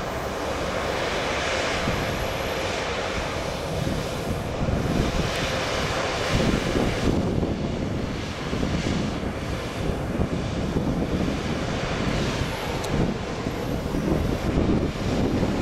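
Sounder commuter train running by on curving track: the continuous rumble of the train and its diesel locomotive, growing heavier about six seconds in.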